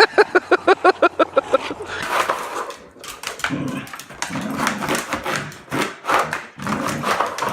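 A dog barking in a quick run of short, evenly spaced barks, about five a second, for the first second and a half, followed by irregular rough, noisy sounds.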